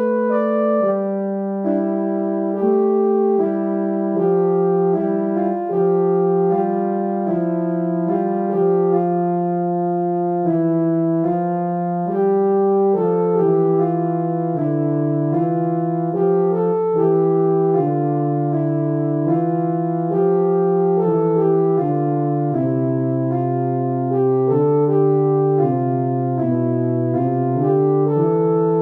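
Instrumental keyboard music: held notes and chords moving in slow steps, starting just after a brief gap between tracks.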